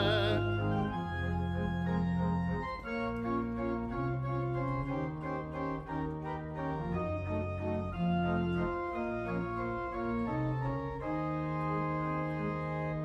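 Church organ playing slow sustained chords over a steady bass, the chords changing every second or so.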